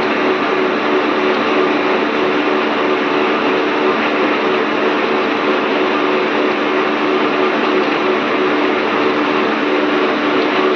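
Machine running steadily while boring out a pulley: a constant motor hum with several steady tones over an even hiss.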